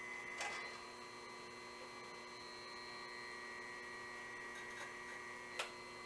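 Bandsaw blade sharpener's electric grinding-wheel motor running steadily with a faint high whine, the wheel not touching the blade. Two light clicks, about half a second in and near the end.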